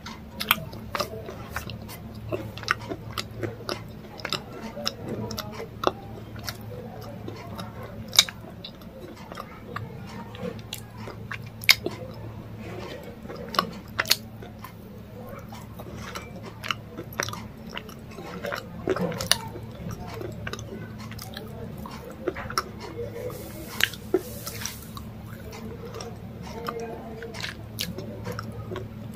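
A person chewing crunchy food close to the microphone: sharp crunches, roughly one every second or so, with chewing in between, over a steady low hum.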